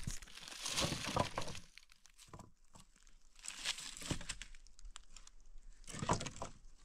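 Dry fallen leaves crackling and dry branches scraping and snapping as firewood is handled, in irregular bursts with short quiet gaps between.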